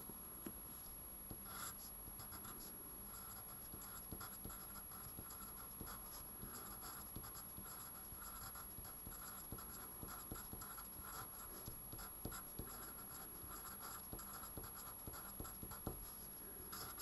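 Pen writing on paper: faint, irregular scratching strokes as a short note and an arrow are written out, then a curved outline drawn around them.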